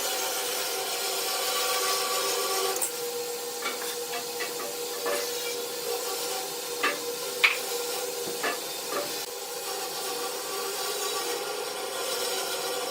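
Wood lathe running with a steady whine while a turning tool scrapes and cuts the spinning wood. The scraping stops about three seconds in, and a few sharp clicks and knocks follow.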